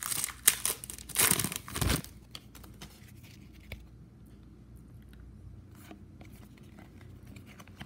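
Foil trading-card pack wrapper torn open and crinkled for about two seconds. Then faint scattered ticks as the cards are slid one by one through the hand.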